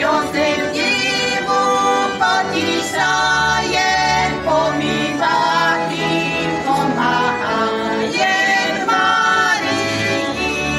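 Folk ensemble singing a song in several voices, with instrumental accompaniment holding low steady notes beneath.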